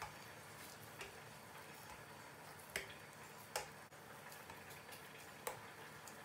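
Quiet room with a faint steady hum and a few soft, faint wet taps as lumps of raw ground-beef köfte mixture are pinched off by hand and set down on an enamel tray.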